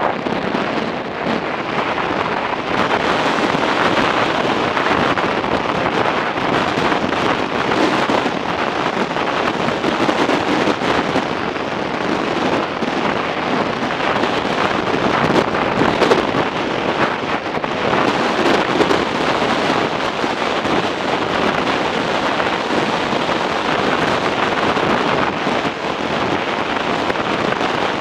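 Steady rush of wind buffeting the microphone of a motorcycle riding at speed, with the machine's running noise blended into it.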